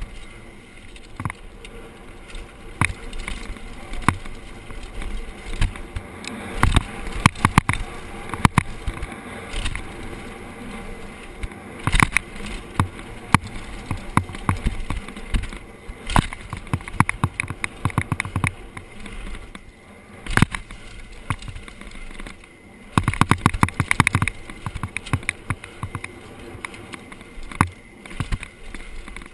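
Giant Glory downhill mountain bike ridden fast down a dirt trail: a steady rushing noise with frequent sharp knocks and rattles from the bike over rough ground, which bunch into dense clattering stretches several times.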